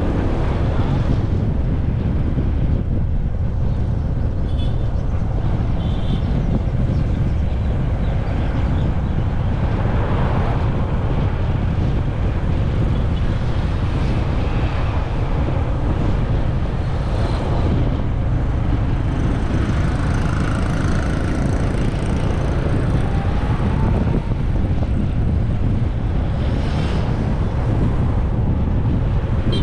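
Motorcycle engine running steadily while riding, with wind buffeting the microphone as a constant low rumble.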